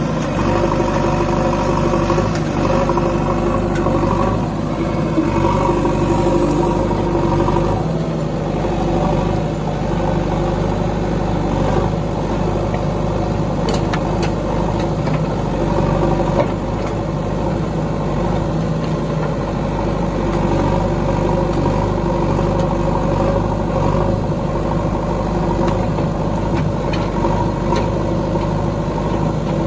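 JCB 3DX backhoe loader's diesel engine running steadily while the backhoe arm digs, with a few short knocks as it works the soil.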